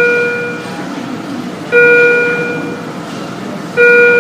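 A bell-like chime tone sounding three times, about every two seconds, each strike ringing out and fading over about a second, typical of a hospital call or monitor alert, over a steady murmur of room noise.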